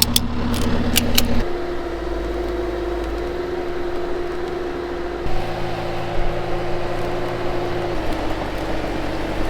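Bobcat skid steer engine running under load while lifting, its pitch shifting in steps a few times as the load changes. A few sharp clicks or rattles in the first second or so.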